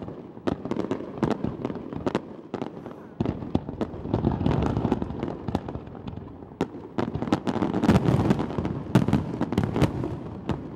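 Fireworks display: aerial shells bursting in quick succession, a dense string of sharp bangs and crackling. The densest volleys come about four seconds in and again around eight to ten seconds.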